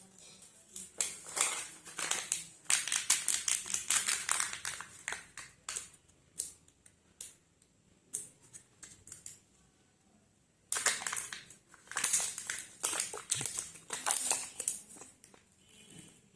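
Chocolate-egg wrappers crinkling and crackling as they are handled and torn open by hand, in two busy stretches with a quieter pause between them.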